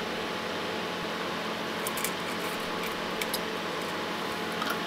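Steady fan-like hum and hiss with a faint constant tone, with a few faint small ticks from handling the circuit board and solder wire.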